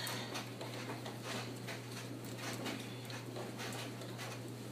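Brother computerized sewing machine stitching slowly along a seam, with a soft tick for each stitch, two or three a second and not quite even.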